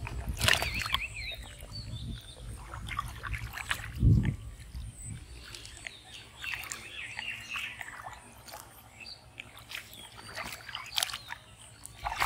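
Shallow muddy water splashing and sloshing as hands grope in it and a carp is handled into a plastic tub, with heavy thumps at the start and about four seconds in. Birds call in the background.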